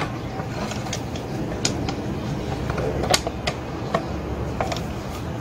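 Scattered clicks and knocks of plastic and metal parts being handled and fitted on a brush cutter engine during an ignition coil replacement, the sharpest knock a little past three seconds in, over a steady low background hum.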